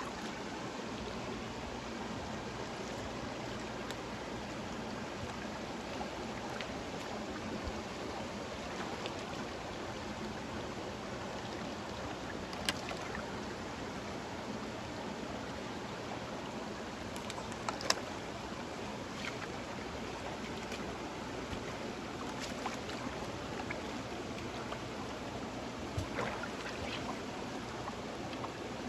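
Fast-flowing river rushing steadily, with a few sharp clicks or knocks, the loudest about eighteen seconds in.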